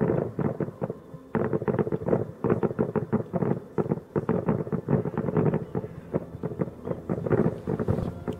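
Fireworks display going off in a rapid, irregular barrage of bangs and crackles, several a second, with a brief lull about a second in.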